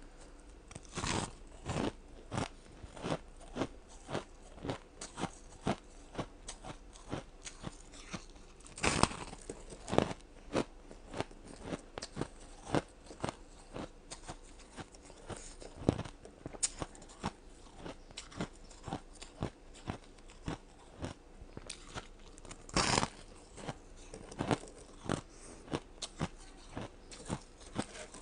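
Ice being bitten and chewed close to the microphone: a run of sharp crunches, about two a second, with a few louder bites among them.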